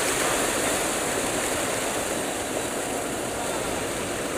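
Steady rush of flowing river water, an even noise with no breaks or distinct events.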